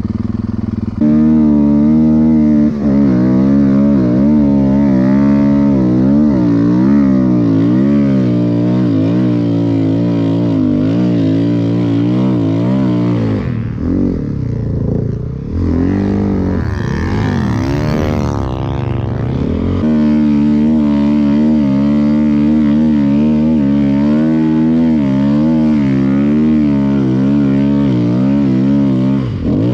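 A snowbike built from a 2014 Honda CRF450R's single-cylinder four-stroke engine on a Camso DTS129 track kit, riding under load with the engine note rising and falling. About halfway through the note breaks up and swings widely in pitch for several seconds, then settles back into a steadier note.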